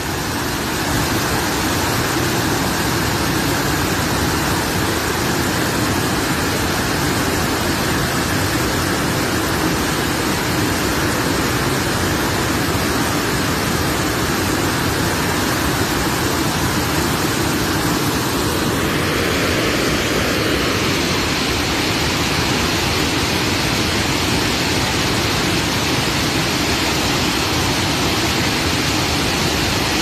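Muddy floodwater rushing and churning through a rocky stream in flash flood, the river in spate: a loud, steady rush of water.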